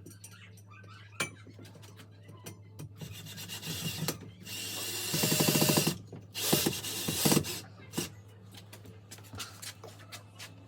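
Power drill briefly driving a screw into the wall about halfway through, a fast pulsing run of about a second, with knocks and handling noises around it and a steady low hum underneath.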